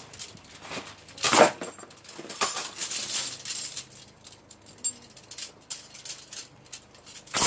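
Steel body-grip traps and their chains clinking and jangling as they are picked up and handled: irregular metallic clinks, with the loudest clank about a second and a half in.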